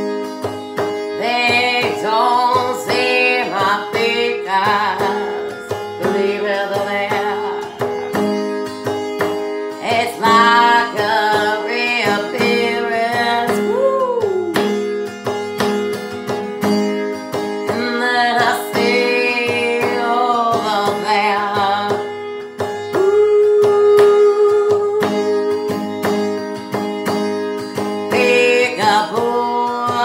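A woman singing to her own strummed acoustic guitar. The guitar strums steadily throughout, and the voice comes in phrases a few seconds long, with stretches of guitar alone between them.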